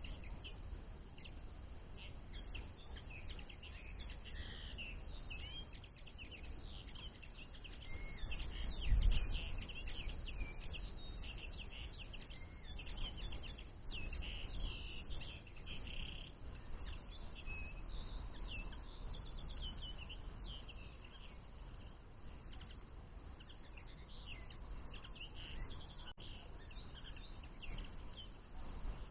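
Common linnets twittering: dense runs of short, high chirps, over a low rumble that swells into a louder bump about nine seconds in.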